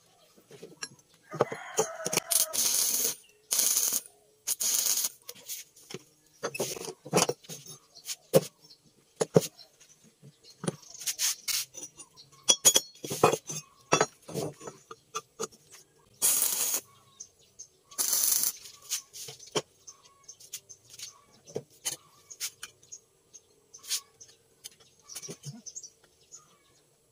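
Galvanized steel pipes being handled and set down on a wooden workbench: a series of irregular clinks and knocks of metal on wood and metal, with a few longer scraping slides.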